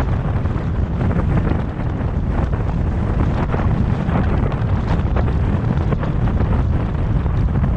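Wind buffeting the microphone of a car driving at speed, over a steady low rumble of road and tyre noise.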